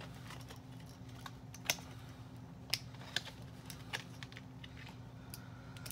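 Scattered light clicks and taps of small plastic doll accessories and packaging being handled, over a faint steady low hum.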